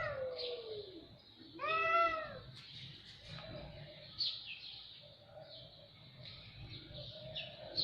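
Cats meowing: a meow tails off in the first second and a loud, arching meow comes about two seconds in. Fainter short calls and high chirps follow.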